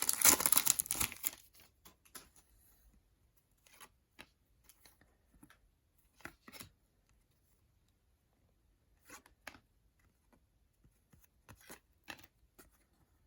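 Foil trading-card pack wrapper crinkling and tearing for about a second and a half, then a few faint scattered clicks and taps as cards are handled.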